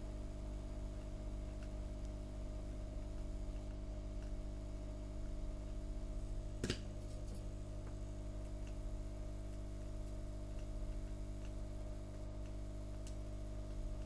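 Steady electrical hum from bench equipment, with one sharp click about halfway through and a few faint ticks.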